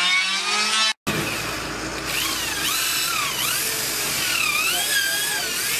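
Cordless drill spinning a wooden sword handle, its motor whine rising and falling in pitch over a steady hiss. There is a sudden break in the sound about a second in.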